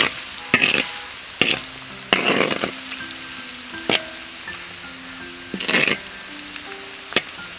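Cornstarch-coated yam pieces deep-frying in oil in a cast iron wok on low heat: a steady sizzle, with a metal spatula scraping and clinking against the wok about six times.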